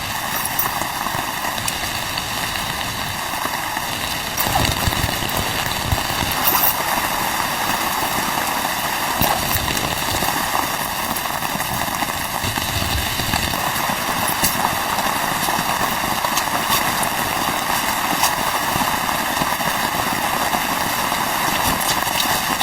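Rain falling steadily on a tent, an even hiss with scattered small taps that grows a little louder about four seconds in.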